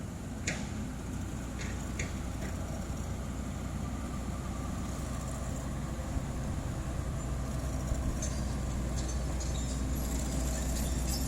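Heavy diesel engine of asphalt-paving machinery running steadily, with a few short metallic clicks and clanks over it, growing a little louder toward the end.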